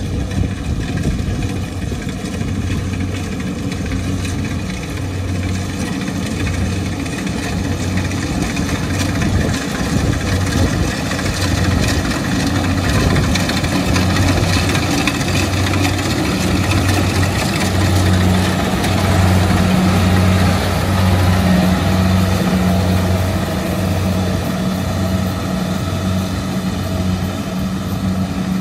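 Kubota DC70 rice combine harvester running under load as it cuts and threshes, its diesel engine and machinery making a loud steady drone with a pulsing low hum. It grows louder and hissier about halfway through.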